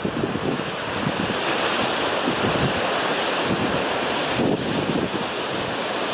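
Ocean surf washing ashore: a continuous rushing hiss that swells about a second in, with wind buffeting the microphone.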